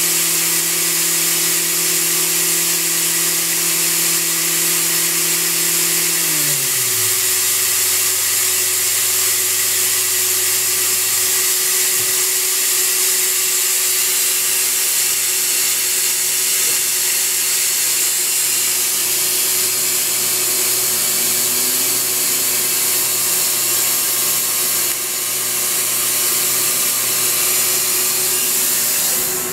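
Mori Seiki SH-503 horizontal machining center's spindle running free with a tool in it, no cutting. Its steady tones glide down together about six seconds in, hold a lower tone, then stop about twelve seconds in as the spindle winds down. A loud steady hiss from the machine carries on throughout.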